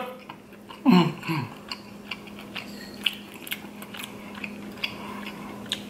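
Cooked king crab leg shell being cracked and pried apart by hand: scattered small sharp clicks and snaps of the shell. About a second in there is a brief low vocal hum.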